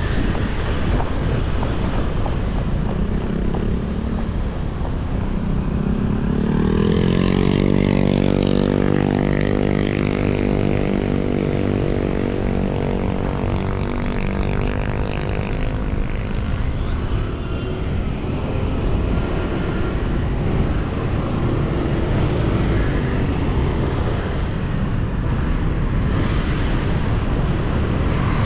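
City road traffic going by, with a steady rumble and hiss. About six seconds in, a vehicle engine passes close: its pitch climbs quickly, then slowly falls away over about ten seconds as it goes.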